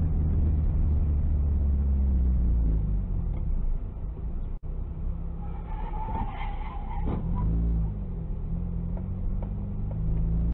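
Car engine and road noise droning steadily, heard from inside the car through a dashcam, with a brief high-pitched tone about six seconds in and the engine's pitch dipping and rising shortly after.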